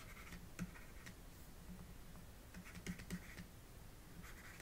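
Faint taps and scratching of a stylus on a pen tablet during handwriting, with a few light clicks, several close together about three seconds in.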